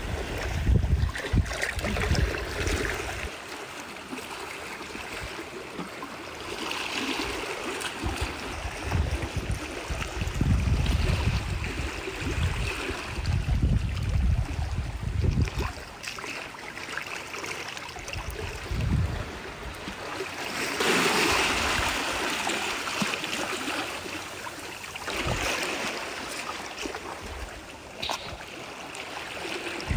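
Gloved hands splashing and sloshing through shallow seawater, louder in a few stretches, with low rumbling gusts of wind on the microphone and a single sharp click near the end.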